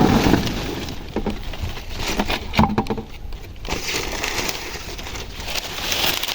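Dry maize plants rustling and cracking as cobs are snapped off by hand: irregular sharp cracks and snaps over dry leaves rustling.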